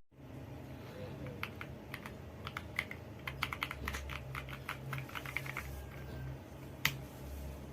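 Typing on an RK Royal Kludge R65 gasket-mount mechanical keyboard: a run of quick keystroke clicks, then one sharper keystroke near the end.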